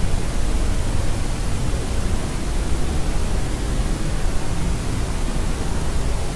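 Steady white-noise track: an even, unchanging rushing hiss, weighted toward the deep end, with no crying in it.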